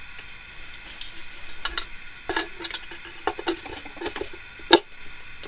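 Light knocks and clicks of a Dansette Capri record player's turntable platter being lowered onto its spindle and worked into place by hand, ending in one sharp clack near the end.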